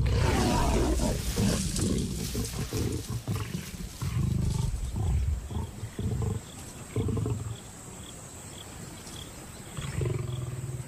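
Lions snarling and growling in a squabble over a carcass, as a male lion bullies lionesses off their kill. A long loud outburst comes at the start, then shorter bursts about four, seven and ten seconds in.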